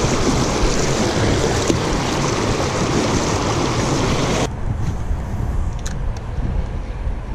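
Creek water rushing over a rocky riffle, a loud steady hiss. About four and a half seconds in it cuts off abruptly, leaving a low rumble with a couple of faint clicks.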